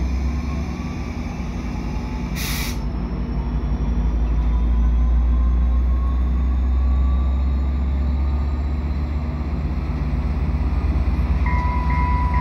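Diesel locomotive running with a steady low rumble that swells a little in the middle. A short air hiss comes about two and a half seconds in, and a steady electronic beeping tone starts near the end.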